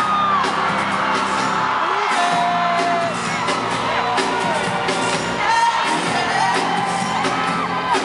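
Live concert music with a steady low synth tone, and many crowd voices whooping and screaming over it in short rising and falling cries.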